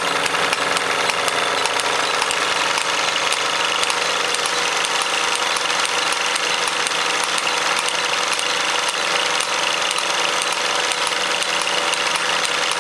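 Two Mamod live-steam toy engines, a twin-cylinder SE3 and a single-cylinder SE2, running steadily under steam: a fast, even patter of exhaust beats over a constant hiss.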